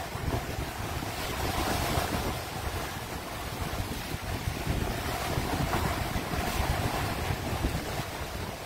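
Sea surf breaking and washing up the beach, with wind buffeting the microphone in a steady, rumbling rush.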